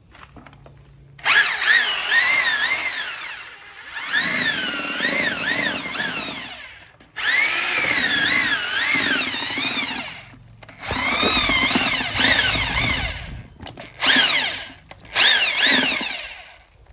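Corded electric drill running in about six bursts of one to three seconds, its motor whine rising and falling as the trigger and load change. It is typical of a drill-mounted paddle mixing tile adhesive in a bucket.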